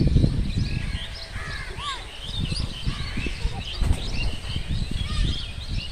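Many small birds chirping and calling in quick, overlapping rising and falling notes, over a low irregular rumble that is loudest at the start.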